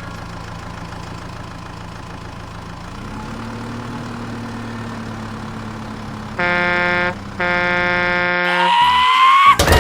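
Cartoon sound effect of a vehicle engine running steadily, its pitch stepping up about three seconds in, then two long horn honks, followed by a rising whistle-like glide and a sharp click near the end.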